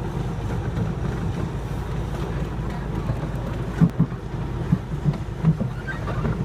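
Ride-on park train heard from on board, running along the track with a steady low rumble and several short knocks in the second half.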